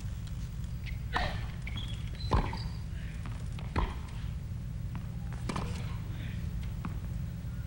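Tennis ball hit back and forth in a rally on a hard court: sharp racket strokes about every one and a half seconds, over a steady low hum.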